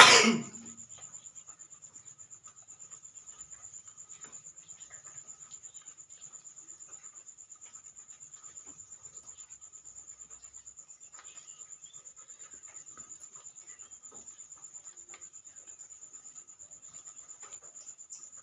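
A single loud sneeze at the very start. After it only a faint, steady, high-pitched trill carries on, with a few faint ticks.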